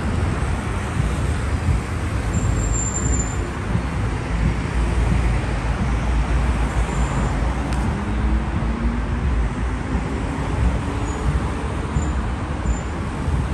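Street traffic: cars and vans driving past, a steady rush of engines and tyres.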